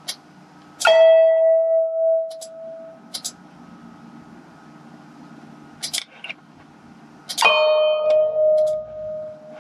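Two single notes sounded by Mus2 notation software as each note is entered: one about a second in and one near the end, each struck suddenly and ringing out over about two seconds. A few sharp clicks fall between them.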